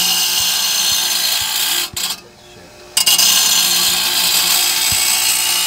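Half-horsepower grinder grinding the edge of a steel mower mulching blade, a loud, harsh hiss over the wheel's steady hum. About two seconds in the grinding breaks off for about a second, then resumes.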